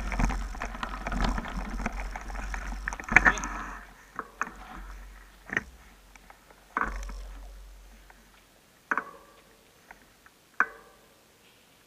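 Mountain bike rolling down a dirt trail: tyres on dirt and leaves with the bike rattling and knocking over bumps, busy for the first few seconds, then quieter with single sharp knocks every second or two.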